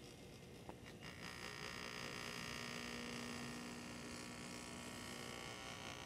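Breville Bambino espresso machine's vibratory pump humming steadily as it pulls a double shot of espresso. There are two faint clicks a little under a second in, after which the hum grows louder and stays even.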